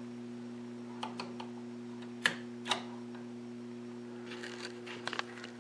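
A few light clicks and taps from handling around the TV cabinet and its wiring, over a steady low electrical hum.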